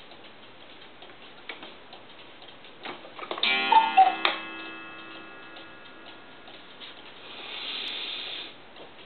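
Mechanical one-day cuckoo clock ticking steadily. About three and a half seconds in, the cuckoo calls once, two falling notes, over two gong strikes that ring on for a few seconds. Near the end comes a short rasping whir.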